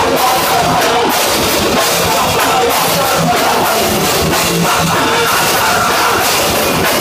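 Live technical grindcore band playing loud: heavily distorted electric guitars over fast drums, a dense, unbroken wall of sound.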